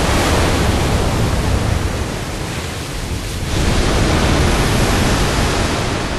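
Loud, steady rushing noise, with no tone or rhythm in it. It dips briefly a little past three seconds in and then swells again.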